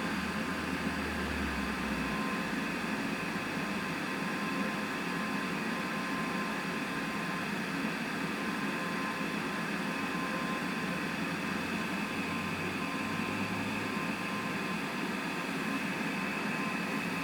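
Steady hum and hiss of background machine noise, with a faint constant high tone and a low hum that fades out about two seconds in and returns briefly later on.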